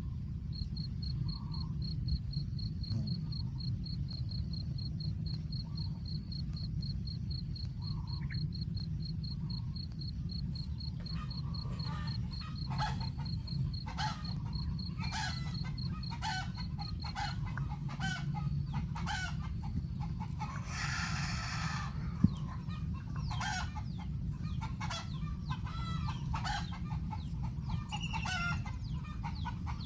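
Birds calling in a rapid series of short, harsh clucking notes from about eleven seconds in, with one longer, fuller call about two-thirds of the way through. Before that, a fast, even high-pitched pulsing runs over a steady low rumble.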